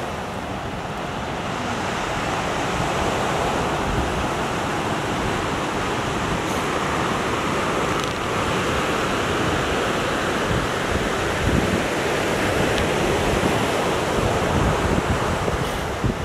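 Ocean surf washing up a sandy beach, a steady rushing noise, with wind buffeting the microphone in low gusts that grow stronger in the second half.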